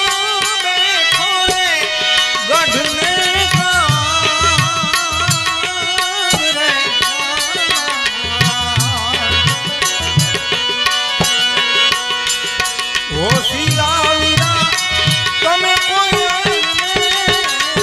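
Gujarati wedding folk music (lagna geet): a wavering melody line over steady hand-drum beats.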